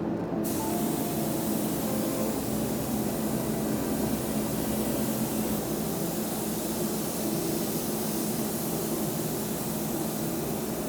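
Steady hiss of a paint spray gun, with a faint low hum underneath.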